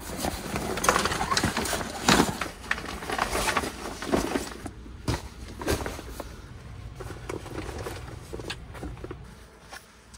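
Clothes and a nylon duffel bag being rummaged and packed by hand: irregular rustling of fabric with short knocks and clicks of things being handled, busiest in the first half and tailing off toward the end.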